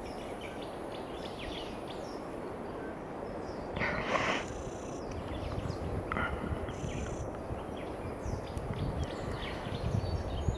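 Outdoor ambience with frequent short, high chirps from birds or small animals. A low rumble builds from about halfway through, and there is a brief rustling noise about four seconds in.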